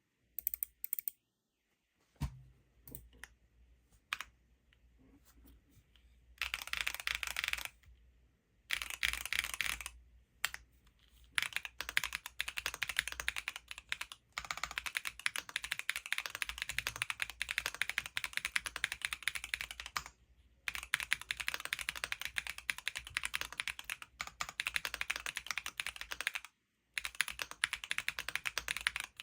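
Typing on a mechanical keyboard with Gateron Baby Kangaroo tactile switches: a few scattered keystrokes at first, then fast, dense runs of key presses broken by several short pauses.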